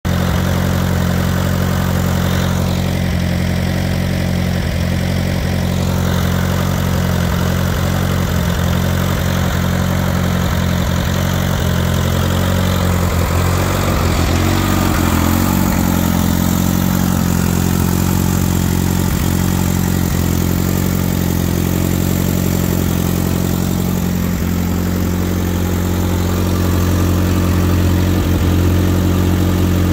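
Vintage Allis-Chalmers tractor's four-cylinder engine idling steadily, with a brief waver in engine speed about halfway through.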